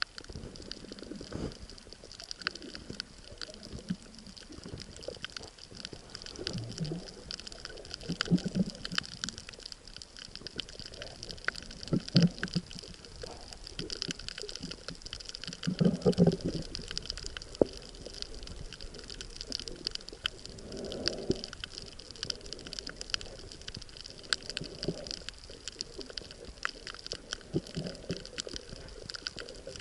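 Underwater sound: muffled gurgling and rushing water that swells every few seconds, over a steady fine crackle of tiny clicks.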